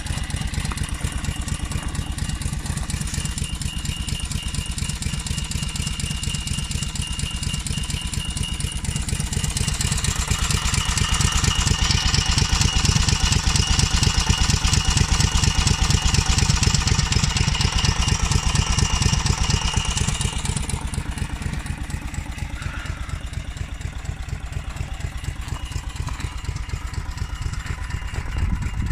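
Briggs & Stratton Quantum I/C 5.5 hp single-cylinder four-stroke engine on a Balcar two-wheel tractor idling steadily. It grows louder and brighter for a stretch in the middle, then settles back.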